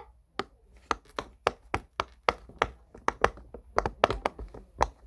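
Silicone pop-it push-pop fidget toy's bubbles being pressed one after another, each giving a short sharp pop, about three pops a second.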